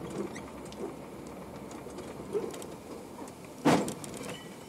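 Steady engine and road noise heard from inside a heavy vehicle's cab, then, about three and a half seconds in, a single loud bang as its front rear-ends a car.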